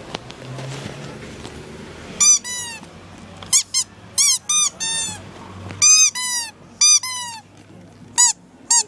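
Squeaky toys being squeezed: about a dozen short, high squeaks in quick irregular runs, starting about two seconds in.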